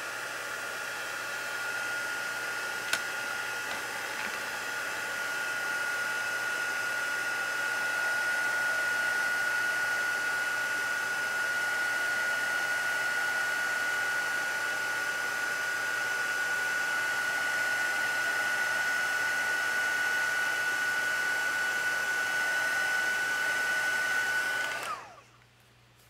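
Handheld craft heat tool running steadily, blowing hot air to melt embossing powder, with a high whine over the rush of air. It is switched off about a second before the end. There is a single click about three seconds in.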